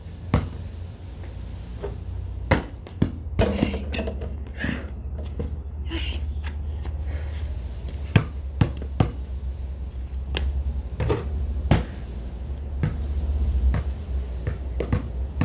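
A basketball bouncing on concrete and thudding against the hoop, sharp knocks at irregular intervals, over a steady low rumble.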